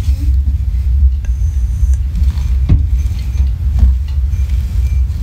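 A steady low rumble with a few faint clicks or knocks over it.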